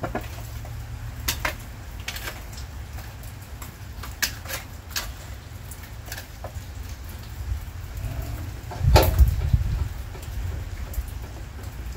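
Steady heavy rain with scattered sharp taps, and one louder knock with a low thud about nine seconds in.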